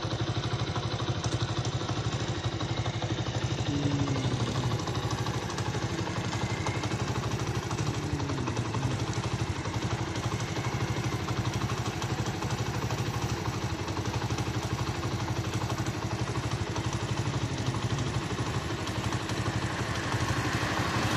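Small single-cylinder Honda motorcycle engine running steadily at road speed, with wind rushing over the microphone.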